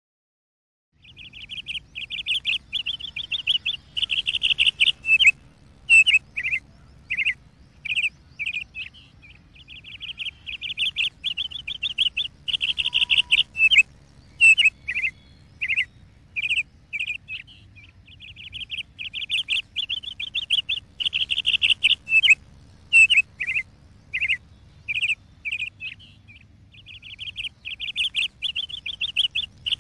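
Bird song: a long, rapid, high trill lasting a few seconds, then a run of separate swooping whistled notes, the pattern repeating about every nine seconds. A faint steady low hum lies underneath.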